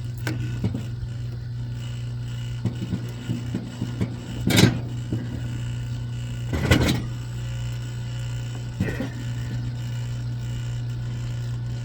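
Wire stripper working thick 400–500 MCM copper cable: scattered clanks and rattles of the cable and machine, two louder crashing bursts near the middle, over a steady low hum.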